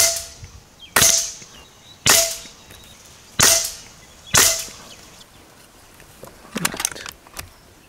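Gare Falcon fully regulated PCP air rifle firing five shots, each a sharp crack, about a second apart. A few lighter clicks follow near the end.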